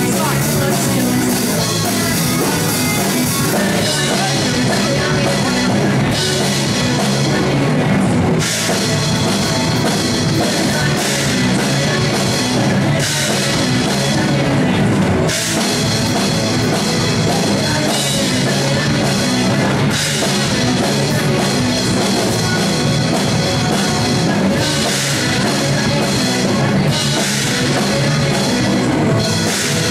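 Live rock band playing loudly, with a drum kit and guitar.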